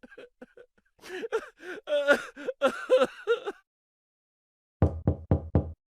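A comic vocal sound effect with bending pitch and no words. Then, about five seconds in, four quick, evenly spaced plops.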